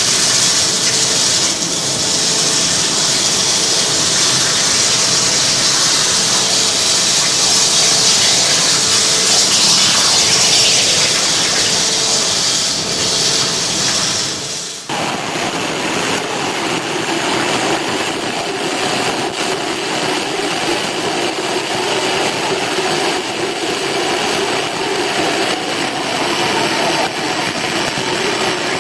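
CNC abrasive water jet cutter running: the high-pressure jet gives a loud, steady hiss, with an on-off tone repeating about once a second through the first half. About halfway through the sound changes abruptly to a lower rushing noise.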